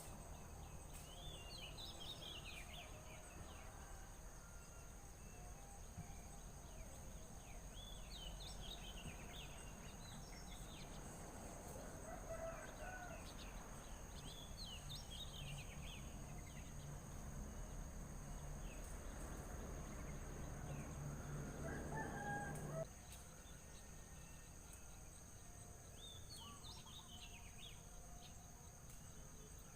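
Small birds chirping in short, high-pitched bouts every few seconds, with a rooster crowing now and then in the background. A low steady hum underneath cuts off suddenly about two-thirds of the way through.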